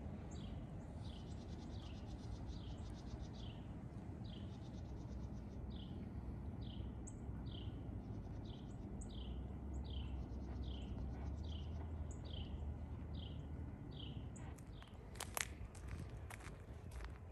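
A bird repeating a short, high, down-slurred call over and over, a little faster than once a second, with rapid rattling trills between some calls, over a steady low rumble. A few sharp clicks come near the end.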